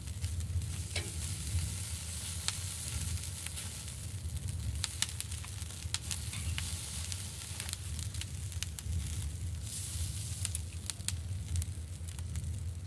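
A sausage sizzling on a wire grill rack over glowing charcoal: a steady hiss broken by scattered sharp pops and crackles, with a low steady rumble underneath.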